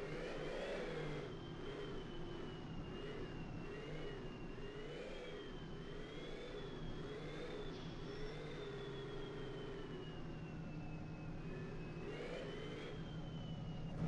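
Vehicle engine running with its revs rising and falling again and again, a high whine rising and falling along with it.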